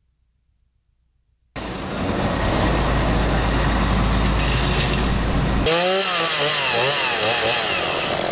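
Silence for about a second and a half, then a heavy engine starts running with a deep rumble and a wash of noise. A few seconds later it cuts to a chainsaw working through wood, its pitch rising and falling over and over as the saw is revved.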